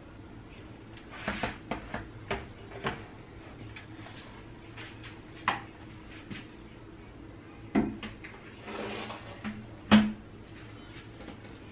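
A string of knocks, clicks and clatter from objects being handled and set down, with a short rustle, ending in one loudest knock near the end.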